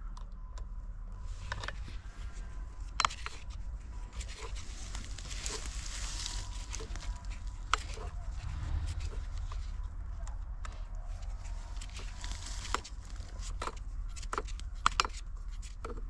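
Hand-work on a chainsaw with its engine off: scattered clicks and knocks of a T-wrench on the bar nuts and of the chain against the bar while the chain is refitted, with rustling in dry pine needles.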